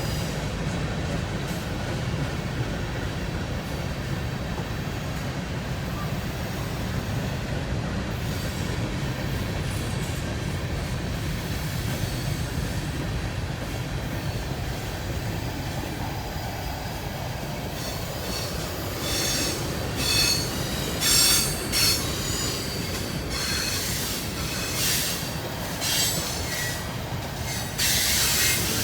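Freight train cars rolling past with a steady low rumble. From about two-thirds of the way in, the wheels give a series of short, high-pitched squeals.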